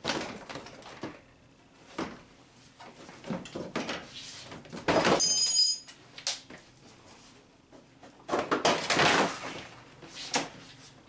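Plastic front bumper cover of a 2003 Honda Civic being pulled free, its clipped edges coming loose from the fender and brackets in a series of irregular scrapes and knocks. The loudest stretch comes about five seconds in, with a brief high squeak.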